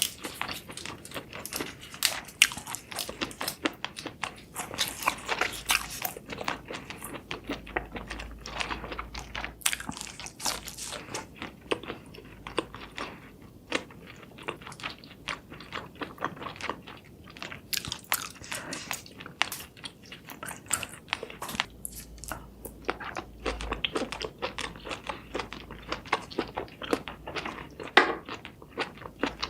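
A person chewing and biting cooked seafood: a continuous run of wet, irregular clicks and crunches, with a few louder snaps.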